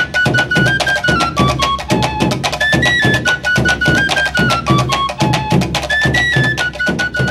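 Upbeat instrumental music: a short stepping melody over quick, steady percussion, with the phrase repeating about every three seconds.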